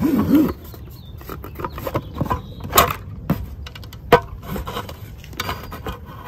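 Rigid clear plastic display case being pulled open: a short squeak right at the start, then scattered plastic clicks and knocks as the lid comes off its base and is handled.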